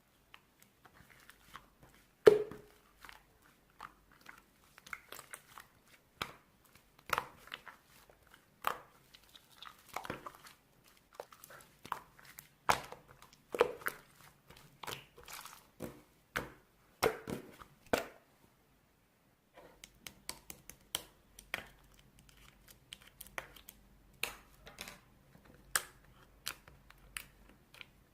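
Irregular crinkling, tearing and tapping sounds of small objects being handled close up, with many sharp clicks; the loudest tap comes about two seconds in, and the sounds stop briefly a little past halfway.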